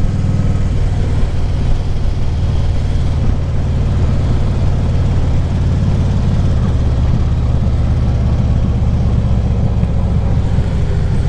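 Harley-Davidson Ultra Classic Limited's V-twin engine running at a steady cruise, a continuous low rumble with road noise.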